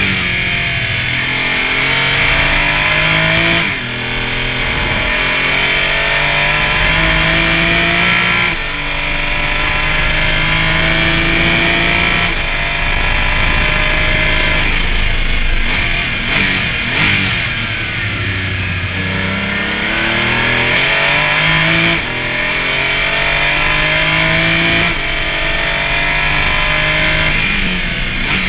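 Porsche Cayman race car engine at full throttle, its note climbing through each gear and dropping sharply at every upshift, about every three to five seconds. A little past halfway the note falls and steps down through downshifts, then climbs again through the gears.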